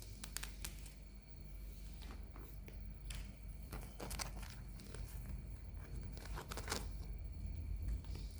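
Toy packaging being handled and unwrapped: scattered crinkles and small taps, with longer crinkling, tearing rustles about four seconds in and again near seven seconds.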